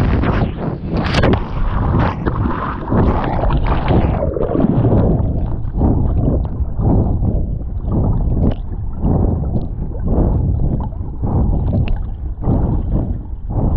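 A handheld camera plunges into the sea: a sharp splash about a second in and a few seconds of rushing, churning water. From about four seconds the sound turns muffled, with low underwater swishing and gurgling as the camera moves beneath the surface.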